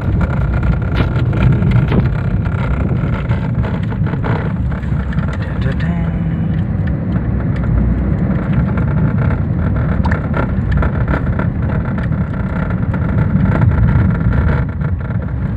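Car driving along a rough dirt lane, heard from inside the cabin: a steady low rumble of engine and tyres, with many short knocks and rattles as it goes over bumps.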